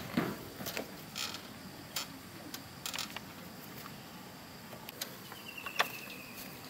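Scattered clicks, knocks and creaks of a step-through motorbike loaded with wooden poles being hauled upright out of mud and pushed, the loudest knock about a fifth of a second in. A brief high buzzing tone sounds near the end.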